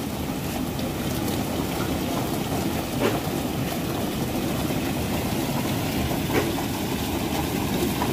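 Engine running steadily aboard a bagan fishing boat, a constant low drone, with a few brief knocks about three, six and eight seconds in.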